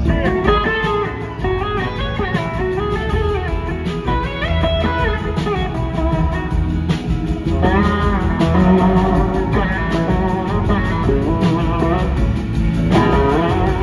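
A blues-rock band playing live, an electric guitar carrying a lead line with sliding, bending notes over bass and drums.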